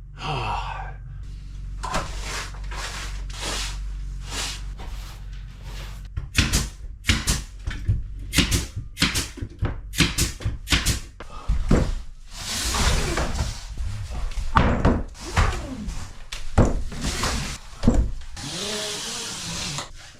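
Repeated hard knocks and thuds, some in quick runs, with stretches of scraping or rustling between them.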